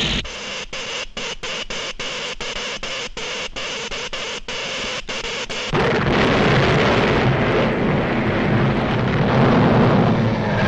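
Cartoon sound effects of an electric earthquake machine at work: a hiss that stutters about three times a second. About six seconds in, a sudden explosive blast follows, then a loud, steady, heavy rumble of the quake.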